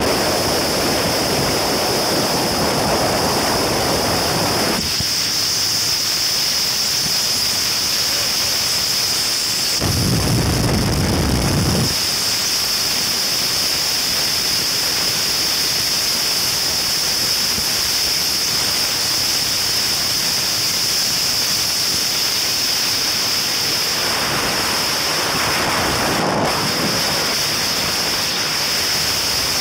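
Steady rush of wind and water from a powerboat running at speed across open sea, with wind buffeting the microphone in low gusts near the start and again about ten seconds in.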